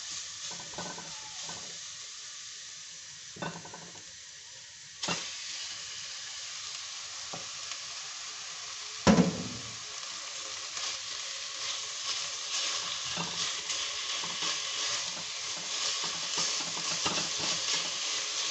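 Grated carrot, celery and then ground beef sizzling in an enamelled cast-iron pot while a spatula stirs and scrapes the bottom. The hiss gets louder about five seconds in, there is a sharp knock about nine seconds in, and the scraping grows more frequent toward the end.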